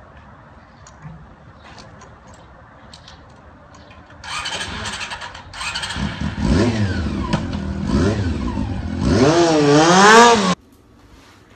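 Motorcycle engine starting about four seconds in and being revved several times, its pitch rising and falling in waves. It cuts off abruptly near the end.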